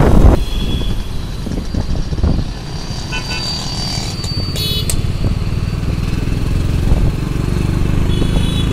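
Motor vehicle engine running steadily with road noise while riding along, with three short horn beeps from traffic: about three seconds in, near five seconds, and near the end. Wind buffeting on the microphone cuts off just after the start.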